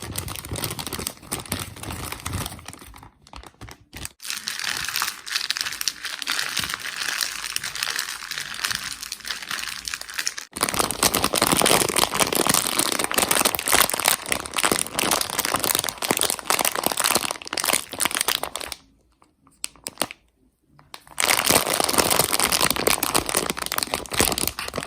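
Plastic Haribo sweet bags crinkling and rustling as they are handled. It gets louder about ten seconds in, with two short pauses.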